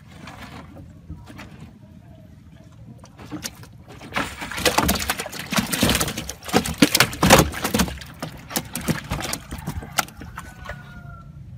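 Large fish slapping and knocking against the bottom of a small boat's hull as they are handled out of a net. A dense run of sharp slaps starts about four seconds in and fades out after about five seconds.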